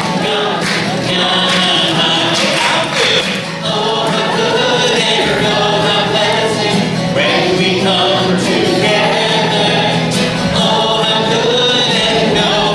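A man sings into a microphone with acoustic guitar accompaniment, and a group of voices sings along with him.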